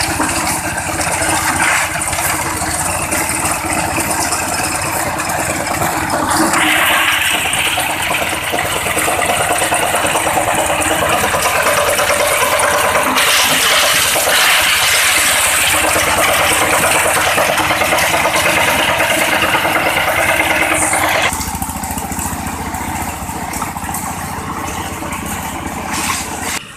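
A 16 PK dompeng diesel engine and the stone-grinding machine it drives, running with a dense mechanical clatter. The noise grows louder and fuller about six seconds in and drops back a few seconds before the end.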